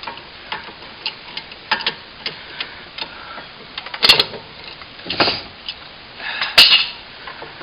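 Hand work with a steel C-clamp being unscrewed and taken off a brake caliper piston: scattered small metallic clicks and ticks, with two sharper knocks about four and six and a half seconds in.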